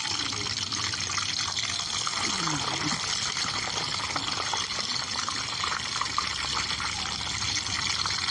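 Brinjal (eggplant) pieces frying in hot oil: a steady sizzle with fine crackling.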